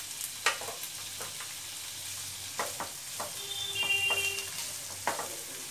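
Chopped onion, capsicum and tomato sizzling in hot oil in a non-stick frying pan on high flame, with a spatula scraping and clicking against the pan several times as the vegetables are stirred.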